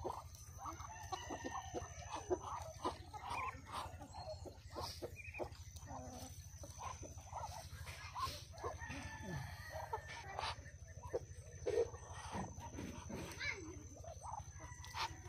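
Farmyard poultry calling: many short clucks and calls scattered throughout, over a steady low hum.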